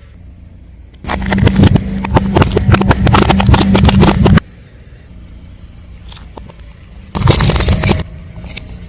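Car tyre rolling over and crushing crunchy objects: a dense run of crackling and snapping over a low engine hum, starting about a second in and cutting off suddenly about three seconds later. A second, shorter burst of crackling comes near the end.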